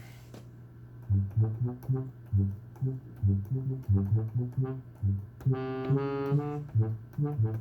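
Yamaha DX7 emulation app playing a tuba patch from a keyboard. A line of short, low notes starts about a second in. Two longer, brighter held notes sound about two-thirds of the way through.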